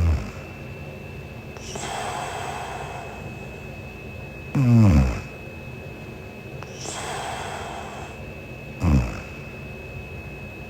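A sleeping woman snoring: three short, loud, low snorts about four seconds apart, each dropping in pitch, with softer breaths between them.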